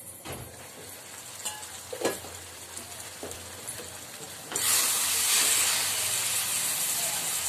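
Stainless steel pan lid lifted with a few light clinks, then tomato and fenugreek-leaf curry simmering and sizzling in the steel pan, a loud steady hiss coming in suddenly a little past halfway, with a spatula stirring it.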